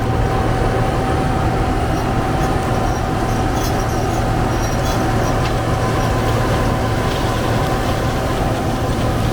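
Large diesel farm machine running steadily under load: a deep drone with a steady high whine over it.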